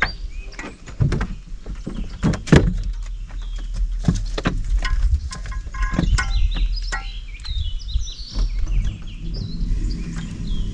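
Irregular knocks and clicks from fishing gear being handled in a small boat, the loudest about two and a half seconds in, over a low steady rumble. Birds chirp at the start and again near the end.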